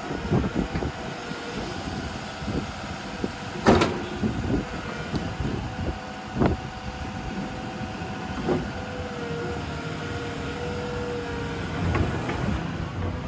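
Komatsu PC210LC-11 crawler excavator's diesel engine running steadily under hydraulic work, with several sharp metallic knocks, the loudest about four seconds in, and a brief steady whine near the middle.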